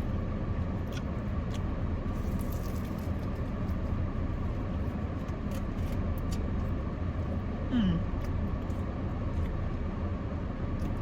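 Steady low rumble of an idling car heard from inside the cabin. A short falling tone comes about eight seconds in.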